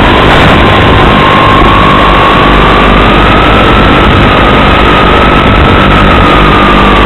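Model airplane's motor and propeller whining under heavy hiss, the whine climbing in pitch over the first few seconds, holding, then starting to drop near the end as the throttle changes.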